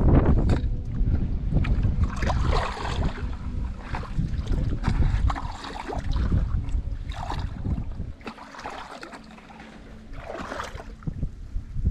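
Sloshing splashes of someone wading through shallow, muddy water, irregular and about once a second, with wind buffeting the microphone in a low rumble that eases about eight seconds in.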